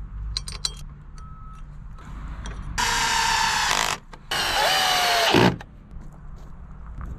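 Cordless drill driver driving a screw through a steel angle bracket into a timber joist: two loud runs of the motor of about a second each with a short pause between, the pitch falling during the second run. A few light clicks come before it.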